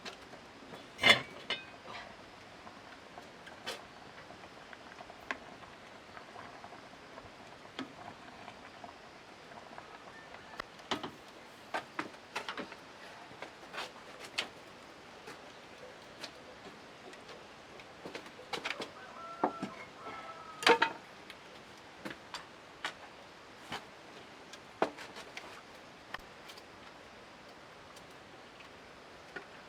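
Irregular light clicks and knocks, with a sharper knock about a second in and another around twenty seconds, over a faint steady hiss.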